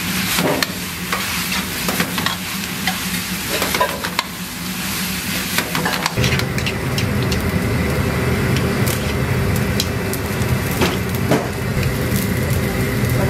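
Sliced onion, carrot, wood ear mushroom and green onion sizzling as they are stir-fried in a wok, with a metal spoon scraping and clicking against the pan. About halfway through, the sound turns to a steadier, deeper rumble of water boiling hard on a gas burner.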